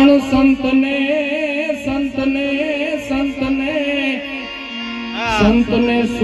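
A male folk singer sings a devotional song in a wavering, heavily ornamented line over the steady held notes of a harmonium. About five seconds in, his voice sweeps sharply up and back down.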